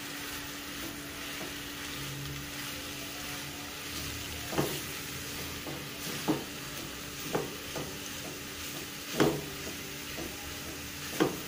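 Blanched grated carrots frying in ghee in a nonstick wok with a steady sizzle, stirred with a silicone spatula. In the second half there are several sharp knocks and scrapes of the spatula against the pan.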